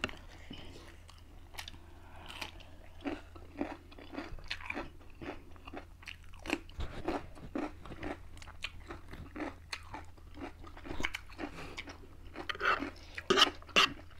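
Close-miked eating sounds of ghost pepper noodles being chewed and eaten, a run of short wet smacks and clicks, with a louder burst of mouth sounds near the end.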